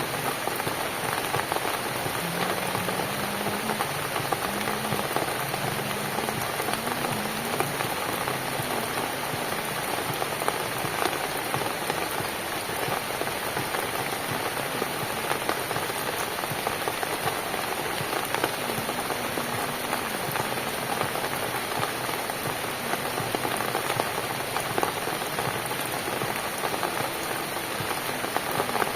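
Steady rain falling on a cabin: an even hiss thick with the small ticks of individual drops, holding level throughout.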